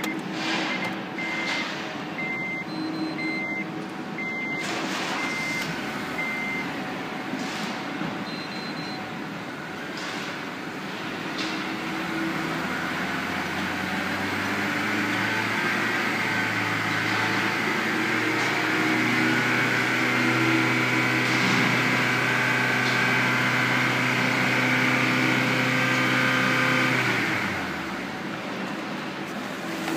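A car's dashboard warning chime beeps about twice a second for the first six seconds. About twelve seconds in, a Honda K20A 2.0-litre petrol inline-four starts and runs at a steady fast idle. Near the end its pitch falls sharply away, as when the engine is switched off.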